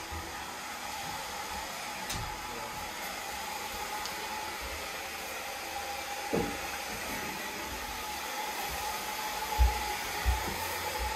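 A steady whirring, blowing noise with a faint steady hum running under it, as from a motor-driven fan or blower. Two low thumps come near the end.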